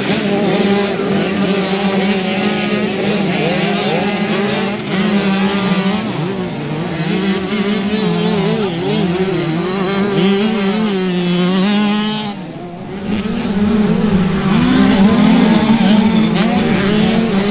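Several small two-stroke youth motocross bikes running together, their engines revving up and down as the riders work the throttles. The sound drops away briefly about two-thirds of the way in, then comes back louder.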